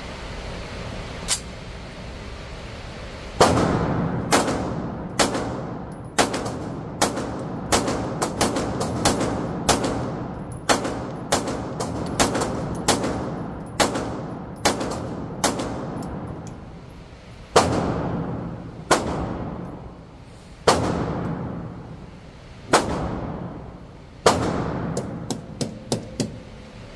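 Live Free Armory Apollo 11 pistol firing a magazine of single shots, mostly a second or less apart. There is a pause about two-thirds of the way through, then a quicker string of shots near the end. Each shot rings on briefly in the enclosed range.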